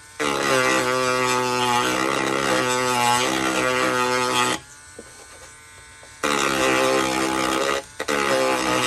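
Dremel rotary tool running as a steady pitched whine while grinding raised detail flush on a plastic model kit part. It stops about four and a half seconds in and starts again after a second and a half, with a brief dip near the end.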